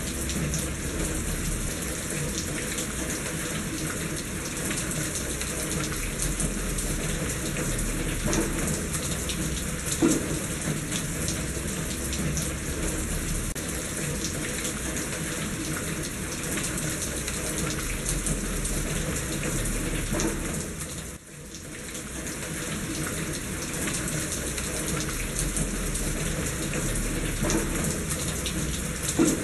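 Steady rain with water running through a gutter, a continuous splashing wash with occasional louder drips. The sound dips briefly about two-thirds of the way through, then comes back.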